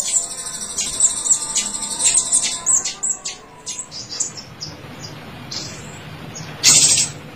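Pentis raja songbird calling in a fast run of high, thin chirps for about three seconds, then thinning to a few scattered notes. A brief loud rustle comes near the end.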